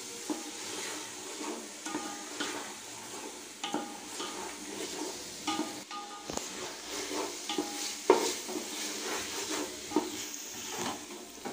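Wooden spatula stirring and scraping an onion-tomato masala with ginger-garlic paste around a metal pot, over a soft frying sizzle, with scattered scrapes and knocks against the pot. The paste is being sautéed until its raw smell is gone.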